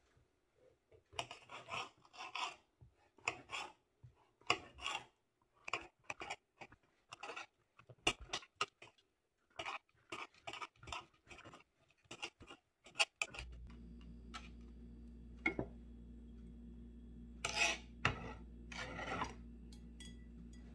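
Kitchen knife slicing and chopping mushrooms on a cutting board: a long run of short, irregular scraping cuts, with a few longer scrapes near the end as the pieces are pushed across the board. A steady low hum comes in about two-thirds of the way through.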